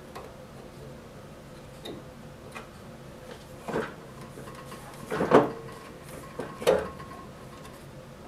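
Metal clunks and knocks as the lower wheel and drive belt of a small band saw are handled by hand. There are a couple of light taps, then three louder knocks about four, five and seven seconds in, the middle one the loudest.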